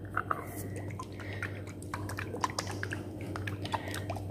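A small bottle of oily hair mixture being handled: irregular light clicks and soft liquid squishing sounds, over a faint steady low hum.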